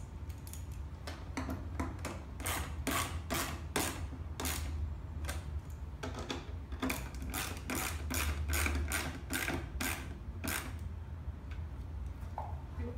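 Rapid, irregular clicks and taps of hands and a screwdriver working on a plastic aftermarket cold-air-intake housing and its intake tube clamp, over a steady low hum.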